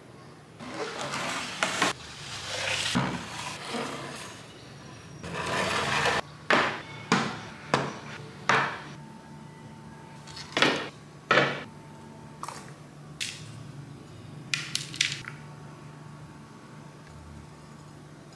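Batter poured from a ladle into shallow metal tins, a soft rushing pour heard in a few spells, followed by a series of sharp knocks and clinks as the metal tins are set down and moved on a wooden table.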